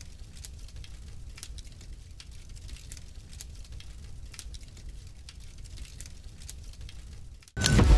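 Fire sound effect: a low steady rumble with scattered faint crackles. Near the end a sudden loud hit cuts in.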